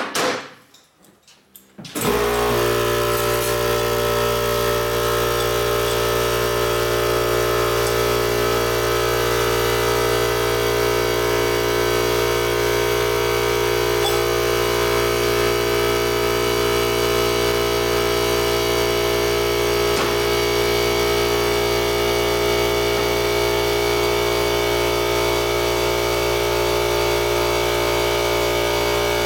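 Craftsman upright air compressor motor kicking on about two seconds in, then running steadily at a constant pitch.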